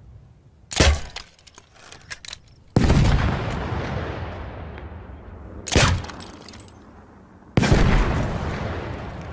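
Grenade crossbow launcher sound effect, twice over: a sharp crack of the launch with a few light clicks after it, then about two seconds later a loud explosion that fades slowly.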